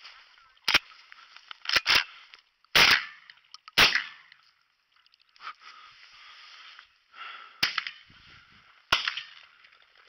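Shotgun shots during a pheasant hunt: a series of sharp cracks, the two loudest about a second apart around three and four seconds in, with a rustling hiss between them.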